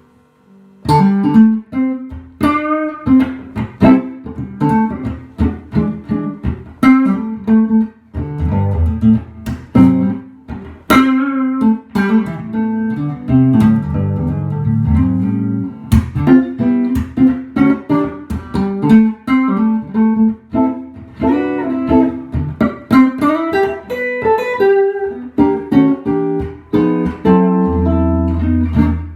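1966 Gibson ES-125 hollow-body electric guitar played through a Fender '68 Custom Princeton Reverb amp: a run of plucked single notes and chords, starting about a second in, with some lower bass notes mixed in.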